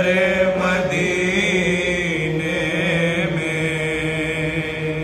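A single man's voice chanting a marsiya, an unaccompanied Shia lament, drawing out long held notes with a slight waver.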